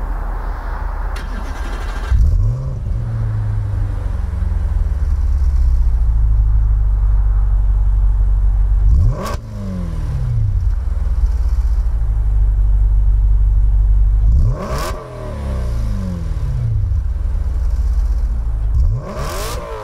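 Audi B8 RS5's 4.2-litre V8 running hard under acceleration. The revs climb and then fall away sharply three times before building again.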